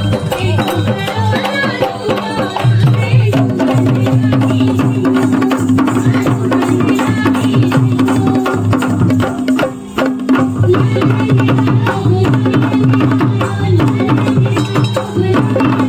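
Maharashtrian folk dance music played live: a woman singing into a microphone over a steady drum rhythm. A long held note comes in about three seconds in and breaks off briefly about ten seconds in.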